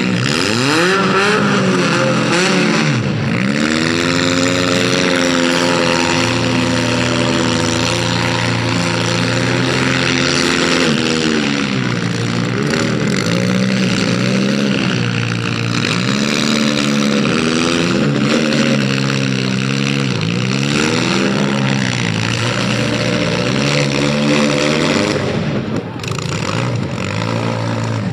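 Full-size demolition derby cars' V8 engines revving hard, their pitch rising and falling over and over, loud and continuous.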